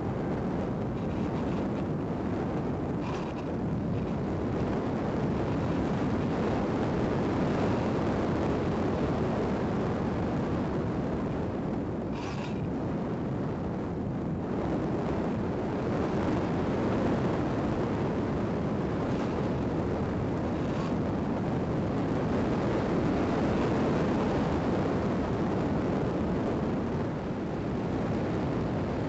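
Steady rushing airflow noise on the onboard microphone of a model motor glider in flight.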